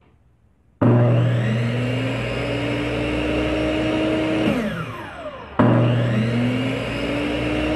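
Circular saw sound effect: the motor starts suddenly about a second in and whines steadily, rising slightly in pitch, spins down with a falling whine just before the middle, then starts up again near the end.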